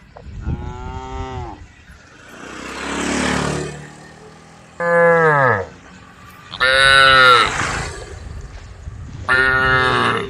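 Cows mooing: four calls of about a second each, the pitch dropping at the end of each. Between the first and second calls there is a rushing noise that swells and fades.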